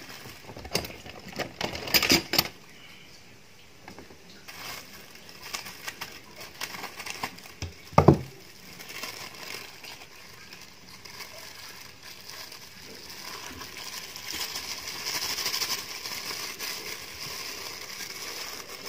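Plastic bag crinkling and rustling as food is squeezed out of it into a stainless steel bowl, with a cluster of sharp crackles in the first few seconds and one loud knock about eight seconds in.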